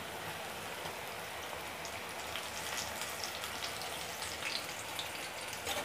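Leaf pakodi frying in hot oil in a kadai: a steady sizzle with many small crackles throughout.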